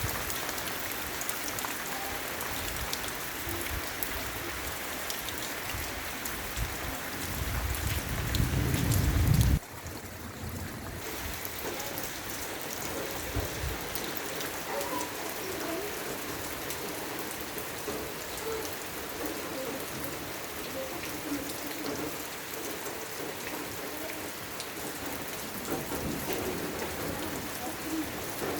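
Heavy rain falling steadily. About seven seconds in, a low rumble of thunder builds, grows loudest and then cuts off suddenly.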